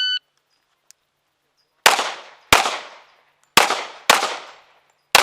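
Electronic shot-timer start beep, then pistol shots fired in pairs, about two-thirds of a second between the two shots of a pair and about a second between pairs: two pairs and the first shot of a third, each crack trailing off in a short echo.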